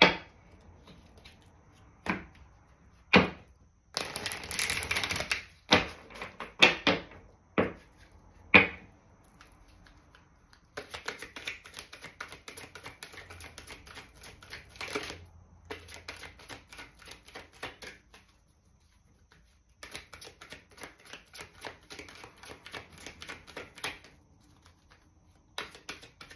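A Native Spirit Oracle card deck being shuffled by hand: first a handful of separate sharp taps and slaps of the cards, then long runs of rapid clicking as the cards are shuffled, broken by two short pauses.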